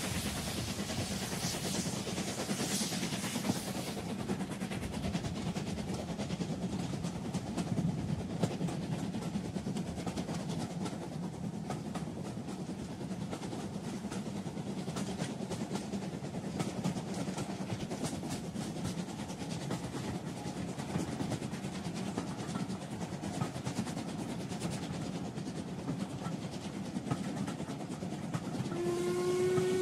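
Steam locomotive running on rails: a steady rumble with a rapid clatter of wheels and a hiss of steam in the first few seconds. Near the end a steam whistle starts to blow, sliding up briefly into a steady tone.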